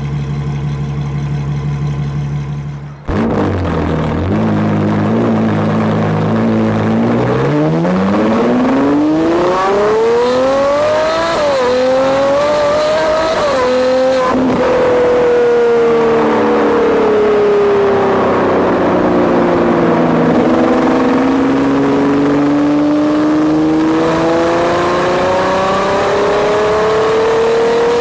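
Ferrari 812 Superfast's naturally aspirated 6.5-litre V12 through a Novitec exhaust. It idles steadily, then accelerates hard with a long climbing pitch broken by brief dips, eases back as the pitch slowly falls, and climbs again steadily near the end.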